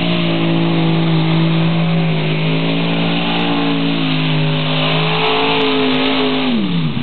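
Pulling tractor's engine running hard at high revs as it hauls the weight sled. Its pitch holds steady, drops a step about four seconds in, then falls away sharply near the end as the revs come down.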